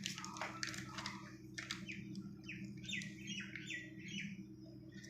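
A run of short, high bird chirps in quick succession through the middle of the clip, over a steady low hum. A few light clicks and taps come in the first couple of seconds.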